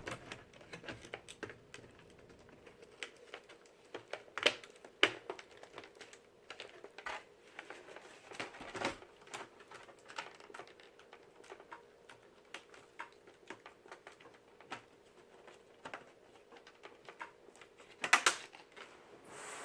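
Plastic clicks and snaps from a Toshiba Satellite laptop's case being pressed closed, its clips locking into place. A scatter of light irregular clicks, with sharper snaps about four to five seconds in and near the end.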